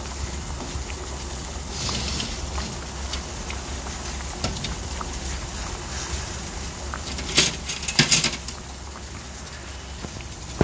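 Stock pot of bone broth at a rolling boil, bubbling steadily, with a low steady hum underneath. A few sharp knocks come about seven to eight seconds in.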